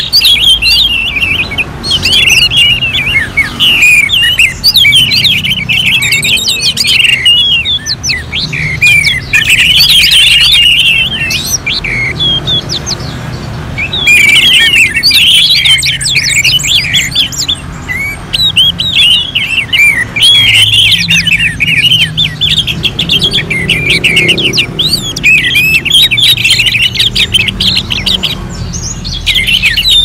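Orange-headed thrushes (anis merah) singing in a dense, overlapping chorus of fast, varied twittering phrases, like birds at a songbird contest, with a short lull about halfway.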